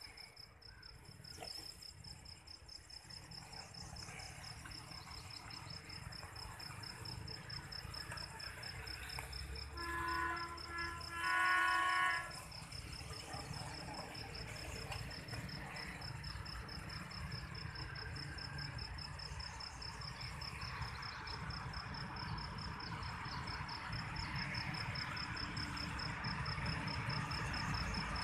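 HBU20 diesel locomotive approaching: a low rumble growing steadily louder, with two horn blasts about ten seconds in. A cricket chirps steadily throughout in a fast, even pulse.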